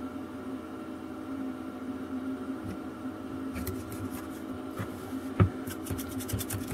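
Desoldering station's vacuum pump humming steadily while a thin wire is pushed into the desoldering gun's nozzle to clear a suspected blockage. From about halfway through there are light scraping clicks, and one sharp knock about five seconds in as the gun is handled.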